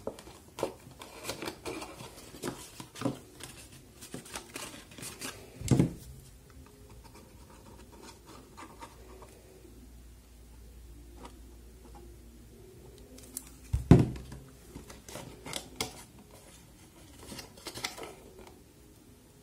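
Card stock being handled while a cube box is folded and glued: scattered rubbing, scraping and light tapping of paperboard under the hands. Two low thumps stand out, about 6 seconds and 14 seconds in.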